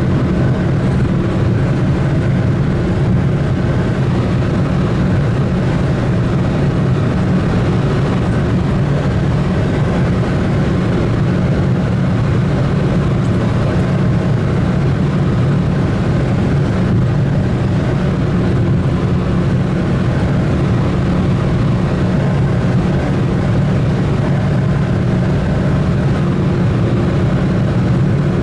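A vehicle engine running at a steady speed: a constant low drone that holds the same pitch throughout.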